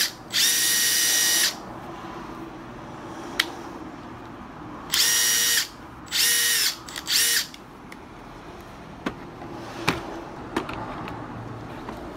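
Makita 18V cordless impact driver spinning freely with no load, a high, even motor whine in short trigger pulls: one run of about a second near the start, then three shorter runs about five to seven and a half seconds in. This is a function check of the tool. Light clicks of handling follow.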